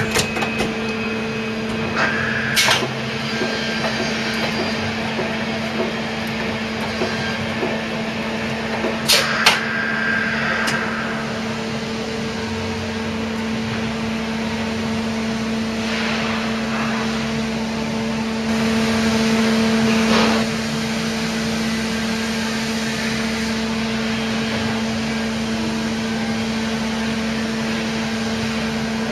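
Mori Seiki MH50 horizontal machining centre running with a steady hum, with sharp metallic clanks about two and a half seconds and nine seconds in as its chain tool magazine indexes. The hum grows louder for a couple of seconds near the two-thirds mark.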